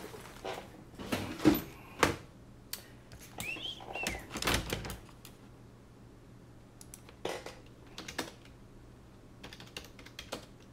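Typing on a computer keyboard in scattered runs of clicks with pauses, with a couple of louder knocks about one and a half and two seconds in and a brief squeak near four seconds in.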